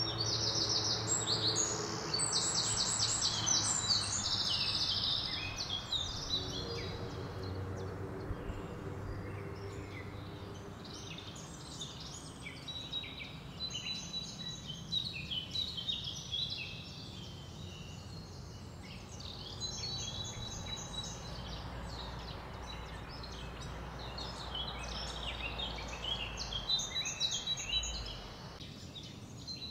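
Beaten eggs sizzling in a generous layer of hot oil in a frying pan as a spatula pushes them around. A bird chirps in quick repeated notes over the sizzle, loudest in the first few seconds.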